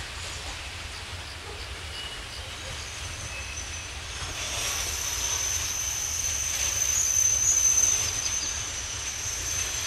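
Heavily loaded open freight wagons rolling slowly through a yard during shunting. A high, steady wheel squeal starts a few seconds in and is loudest near the end.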